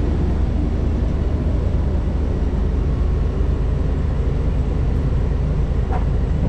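Large vehicle engine running steadily with a deep, even low rumble.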